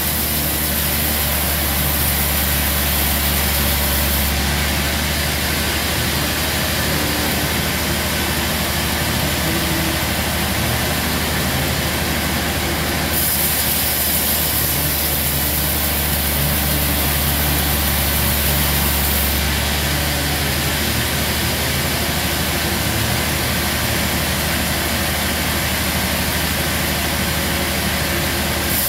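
Bandsaw mill running with its blade cutting lengthwise through a large log: a steady, loud machine drone with a low hum under a broad hiss of the cut. The hiss brightens for several seconds at a time, once about midway and again near the end.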